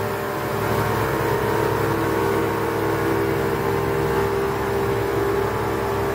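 Speedboat engine running steadily at speed, with a constant pitched drone over the rush of water from the wake.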